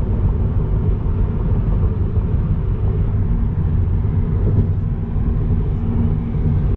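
Steady low rumble of a car on the road: engine and road noise, which cuts off suddenly at the end.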